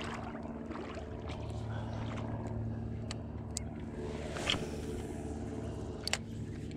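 A steady low engine drone, with a few sharp clicks scattered through it and a short swish about four and a half seconds in.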